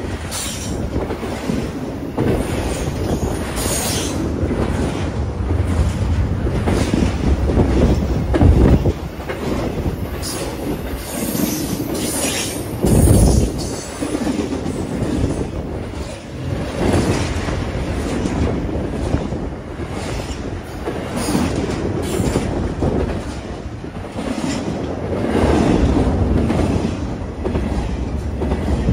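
BNSF intermodal freight train of double-stack cars passing close at speed: a continuous rumble with steady wheel clatter over the rail joints and brief high wheel squeals now and then. Two heavier thumps come about nine and thirteen seconds in.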